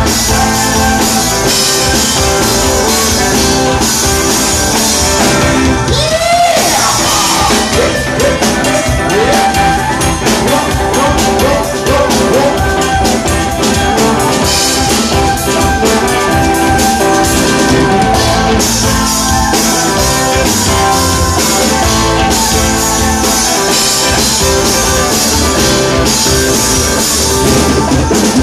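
Live band playing rock music on drum kit and electric guitar, with an upright two-string bowed fiddle in the mix. A run of sliding high notes comes in about six seconds in and carries on for several seconds.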